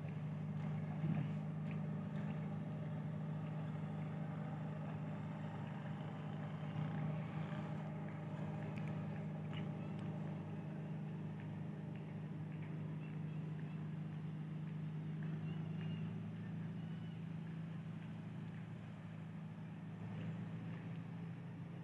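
ZCU-20 diesel-electric locomotive working under power after being notched up: a steady low engine drone that eases a little near the end.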